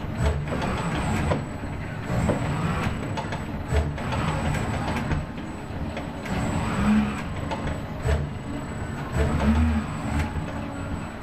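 ABB industrial robot arm's joint motors running as the arm swings back and forth between the paint cups and the canvas, the motor sound swelling and rising and falling in pitch with each move.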